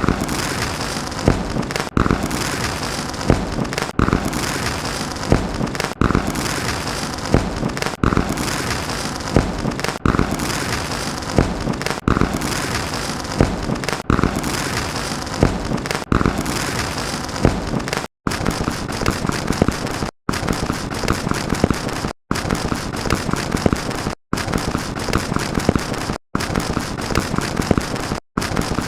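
Dense, continuous crackling noise from many sound effects stacked together, restarting about every two seconds with a sharp crack at the start of each segment. From about 18 seconds in, the segments are separated by brief drops to silence.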